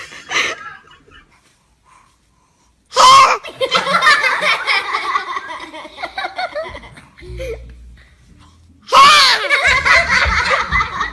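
A baby sneezes and laughter follows, twice: a sudden loud sneeze about three seconds in with several seconds of laughing after it, then another sneeze and more laughter near the end.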